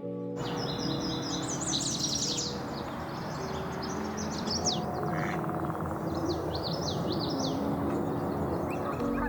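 Small birds chirping and twittering in quick, sweeping high notes over a steady background hum of noise.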